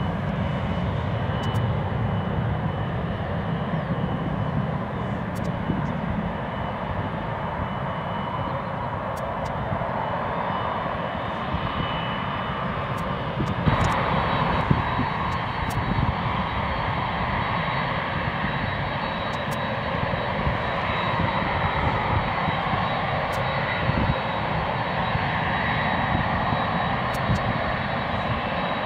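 A Boeing 747's four jet engines running with a steady roar and a thin high whine. The whine steps up to a higher pitch about halfway through.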